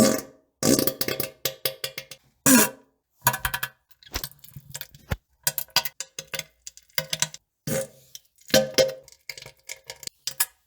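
A rapid string of short fart and poop sound effects edited back to back, each cut off abruptly with silent gaps between. Some are low and pitched, others short sharp clicks and plops.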